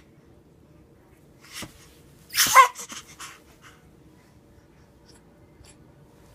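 Short squeaky vocal noises: a brief breathy sound, then one loud squeak that bends in pitch about two and a half seconds in, followed by a few small softer noises.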